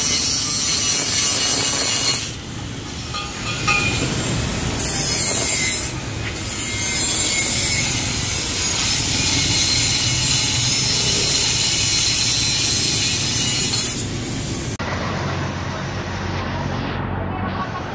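Car driving on the road: a steady rush of road and wind noise with a low rumble, dropping abruptly in level about two seconds in and again near the end.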